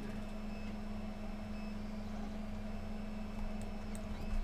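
Steady low electrical hum of room and equipment noise, with a few faint computer keyboard and mouse clicks near the end.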